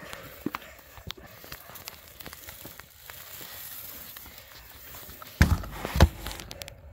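Handling noise from a phone being carried: scattered small clicks and crackle, then loud bumps near the end as the microphone is knocked and covered.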